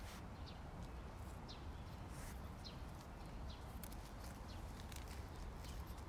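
Quiet outdoor ambience: a low, steady rumble with many faint, short, high chirps scattered irregularly throughout, several a second.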